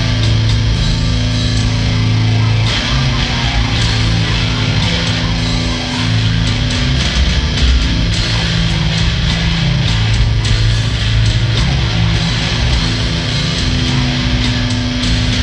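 Instrumental heavy metal jam: electric bass guitar, electric guitar and drums playing together, with held low notes that change every second or so under steady drum hits.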